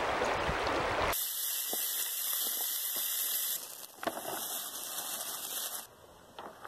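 Rushing shallow river water and wind on the microphone, then, after a cut about a second in, a steady high hiss with a few faint ticks that fades low near the end.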